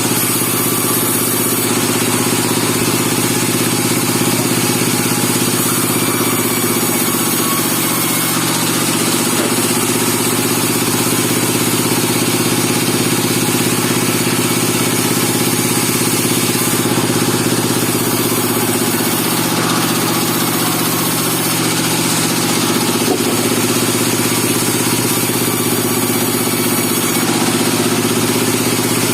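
Engine of a portable band sawmill running steadily at an even speed, with a hiss above the engine note.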